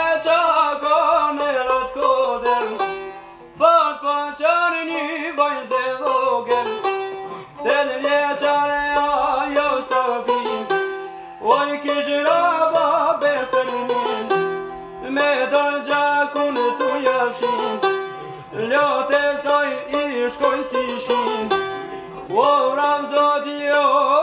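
Çifteli and sharki, long-necked Albanian lutes, playing an instrumental folk tune with quick plucking, the same melodic phrase coming round about every four seconds.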